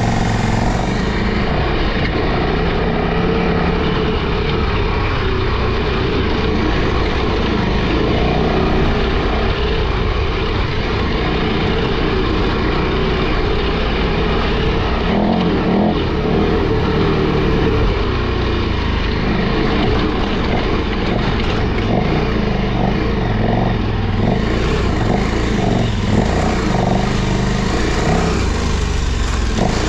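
KTM 1290 Super Adventure R's V-twin engine working under load up a steep dirt climb, its note rising and falling with the throttle.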